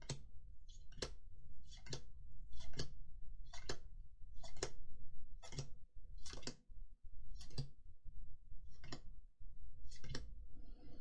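Magic: The Gathering trading cards flipped through one at a time, each card giving a short crisp snap, about one a second.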